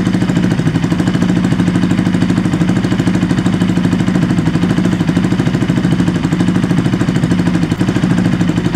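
Bajaj Pulsar NS200 single-cylinder engine idling steadily, with a fast, even pulsing. Exhaust is leaking through a crack at the joint between the header pipe and the underbelly muffler.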